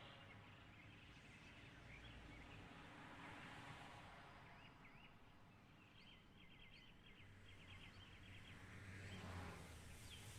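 Near silence: faint bird chirps, a quick run of them in the middle, over quiet outdoor ambience.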